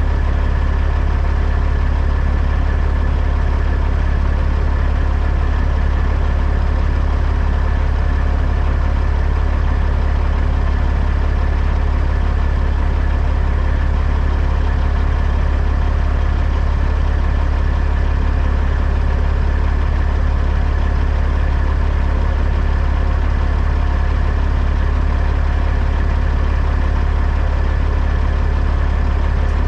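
Heavy truck's diesel engine running steadily, a constant low drone with no change in pitch or level.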